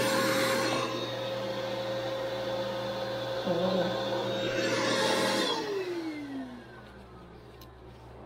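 Belt grinder running with a steady whine while a steel knife blade is ground on its belt, giving a hissing rasp near the start and again about four to five seconds in. The grinder is then switched off and its whine falls in pitch as the motor spins down.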